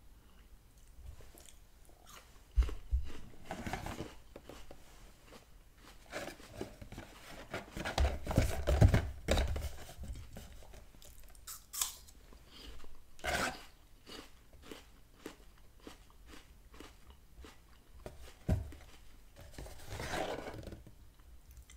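Close-miked chewing and crunching of apple slices, a run of small wet crackles and clicks. Now and then a louder thump or rustle as the cardboard Happy Meal box is handled, the loudest about a third of the way in and again near the end.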